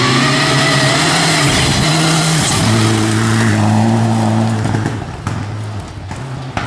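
Rally car engine held at high revs as the car drives through, its note breaking briefly about two and a half seconds in, then fading as the car moves away.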